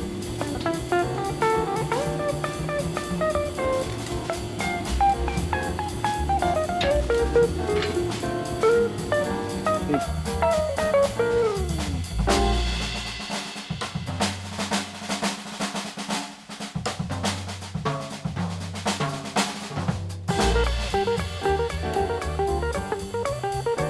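Background music: a melody over a drum kit. About twelve seconds in a deep bass hit opens a drum-heavy stretch, with a short break before the melody returns near the end.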